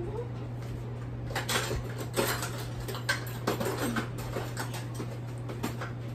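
Kitchen utensils and measuring spoons clinking and clattering on a countertop, a quick run of light knocks over a steady low hum.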